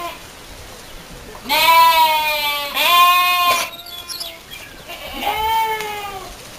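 Goat kids bleating: three long calls, the first two back to back about a second and a half in, the third about five seconds in.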